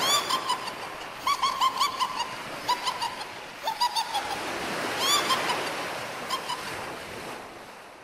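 Sea waves washing onto a beach, with clusters of short, high bird calls over the surf; the sound fades down near the end.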